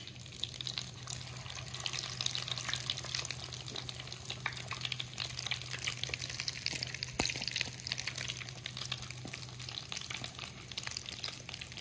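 Egg-coated potato fries deep-frying in a karahi of hot, heavily foaming oil: a steady, dense crackling sizzle. A low steady hum runs under it and stops about ten seconds in, and there is one sharp click past the middle.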